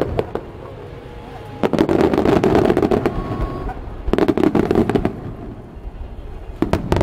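Aerial fireworks going off in rapid salvos: three dense clusters of bangs and crackling, the first and longest about a second and a half in, another about four seconds in and a third just before the end, with quieter gaps between.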